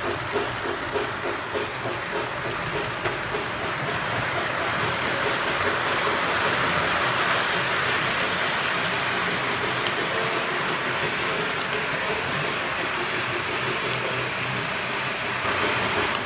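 American Flyer Polar Express S-gauge model steam train running with its electronic sound system chuffing, about two beats a second at first, then merging into a steady, louder hissing rush from about four seconds in.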